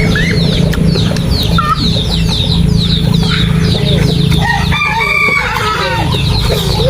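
Birds calling: many short high chirps, with a longer call about five seconds in, over a steady low hum.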